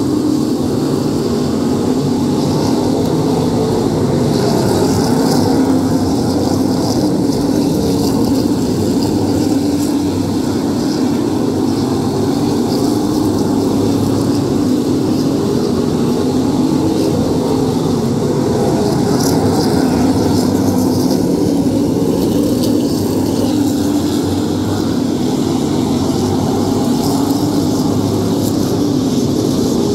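A field of modified race cars circling the oval at slow, steady pace, many engines blending into one even drone with no hard acceleration.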